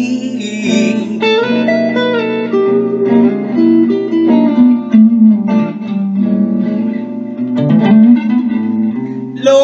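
Electric guitar playing a slow blues lead fill of single picked notes with string bends, between sung lines.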